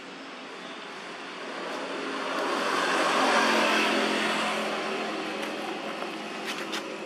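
A motor vehicle passing by: its noise swells over a couple of seconds, peaks midway and fades away again.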